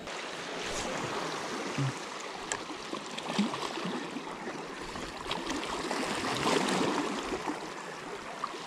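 Sea water washing against rocks: a steady rushing of surf that swells a little around the middle and eases again.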